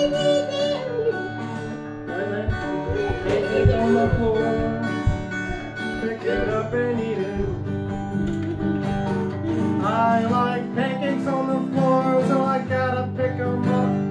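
Acoustic guitar strummed through a song, with a voice singing a wavering melody over it.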